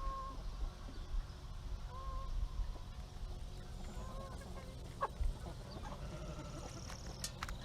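Chickens clucking on a farm, with a short call repeating about every two seconds over a steady low background rumble and a few sharp clicks.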